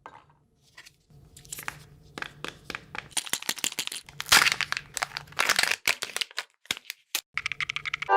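A candy wrapper being crinkled and torn open by hand: a quick, irregular run of crackles and rustles.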